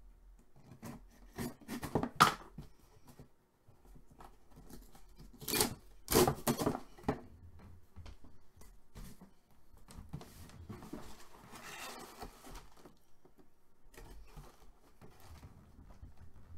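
Cardboard mailing box being torn open by hand, with sharp ripping sounds about two seconds in and louder rips around six to seven seconds in, followed by softer rustling as the contents are handled.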